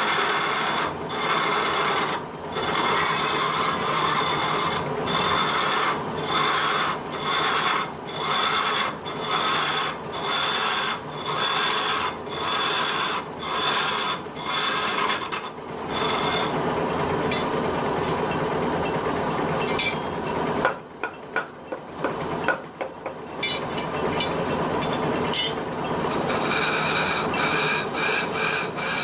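Wood lathe turning a wooden cylinder while a long-handled turning tool scrapes and cuts the spinning blank. It goes in repeated passes about once a second for the first half, then in a steadier cut with a few brief breaks a little past the middle.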